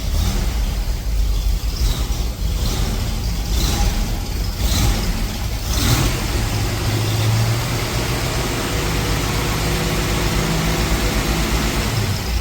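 Engine-driven blower running steadily, with a strong rush of air, as dust is blown off a stripped car body.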